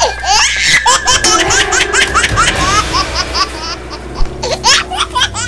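Childlike giggling laughter: a quick run of short, high giggles, each rising in pitch, about four a second, with sharp clicks in between.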